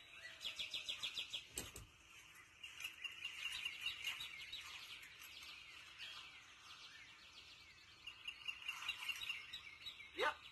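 Birds chirping in rapid, repeated trills, with a short knock about two seconds in.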